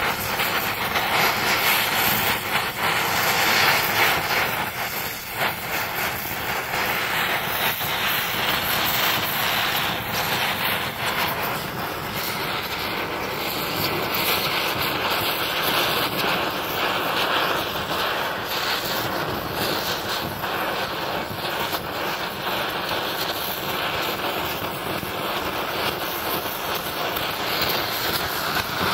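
Gas welding torch flame hissing steadily while it heats a cast iron grate for brazing repair.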